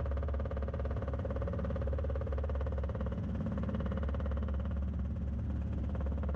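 Robinson R22 helicopter in flight, heard from the cabin: a steady drone of the piston engine and rotor with a fast, even beat, holding constant during the approach to land.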